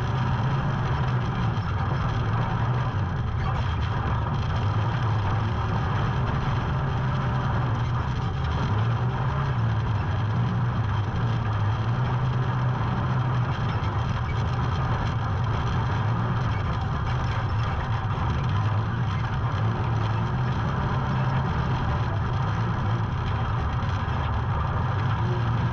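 A vehicle engine running steadily, its low drone wavering slightly, with a constant hiss over it.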